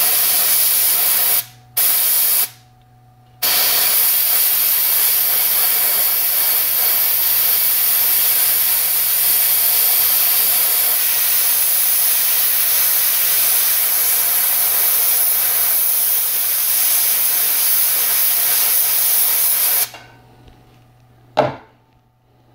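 Airbrush spraying paint with a steady hiss: two short bursts in the first couple of seconds, then one long spray of about sixteen seconds that cuts off suddenly. A single short knock follows near the end.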